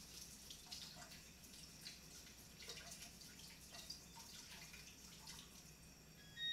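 Faint running and dripping water in a kitchen sink, with small splashes and knocks as potatoes are rinsed and scrubbed by hand. Right at the end, a kitchen timer gives a short electronic beep, the timer for cornbread baking in the oven.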